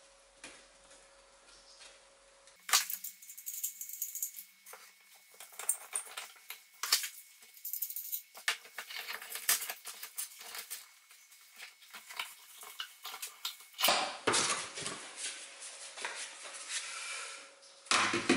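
Bar clamps and wooden blocks being set down, positioned and screwed tight on a plywood workbench to hold a strip of sheet steel in a wooden former. Irregular clatters, knocks and scrapes after a quiet first couple of seconds.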